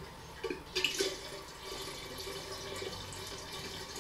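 Water running from a pump on a large bottled-water jug into a kettle: a steady trickling stream. A few light knocks come between about half a second and one second in.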